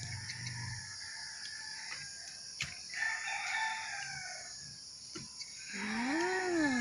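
Rooster crowing: one long call near the end that rises and then falls in pitch, with a fainter call a few seconds earlier.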